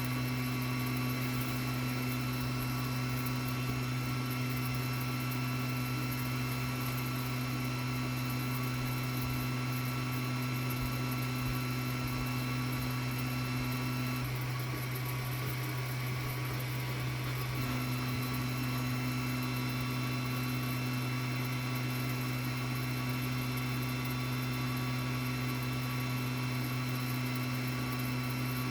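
Ender 3 Max 3D printer running during a filament purge: a steady fan and motor hum. A higher whine over it stops for a few seconds about halfway through, then resumes.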